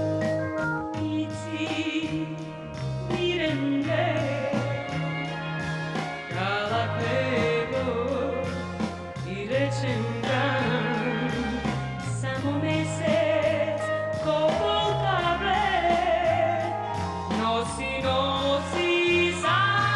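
Macedonian pop song from the 1970s: a female singer holding notes with vibrato over a band with bass and a steady beat.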